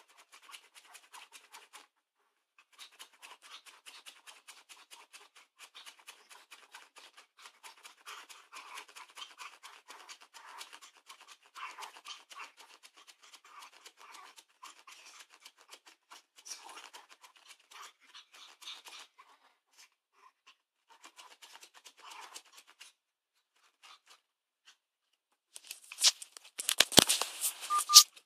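Chihuahua scrabbling at a man's denim trouser leg for chicken wings, with rapid scratchy claw-on-fabric clicks and rustles and short gaps in between. Near the end come louder rustles and knocks, close to the microphone.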